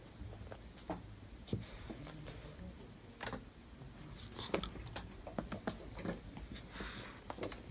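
Scattered soft clicks and rustles of a French bulldog and a Sphynx kitten play-wrestling on a carpet.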